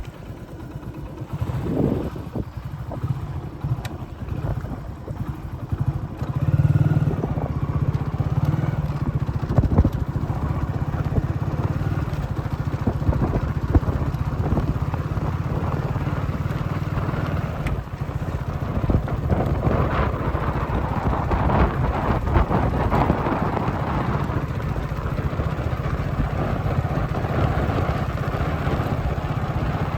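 An engine running steadily with a low, fast-pulsing rumble, getting louder about six seconds in.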